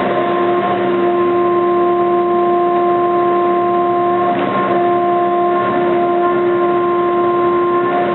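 CNC milling machine cutting aluminium at a 2 mm depth of cut and high table feed: a steady, loud whine made of several even tones over a rushing noise.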